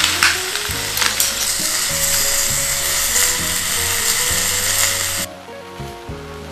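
Background music over a steady loud hiss with a few clicks; the hiss cuts off suddenly about five seconds in.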